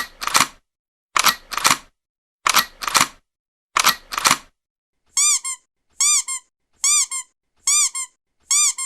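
A camera shutter clicking four times, each a quick double click, about a second apart. About five seconds in, a squeaky toy squeaks in pairs, about once a second, each squeak rising and falling in pitch.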